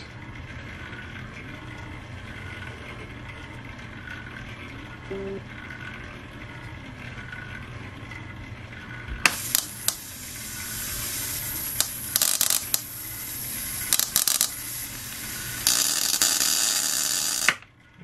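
High-voltage electric arc spinning inside a ring magnet, hissing and crackling in uneven bursts from about halfway on, then cutting off suddenly just before the end. Before the arc starts there is only a low steady hum.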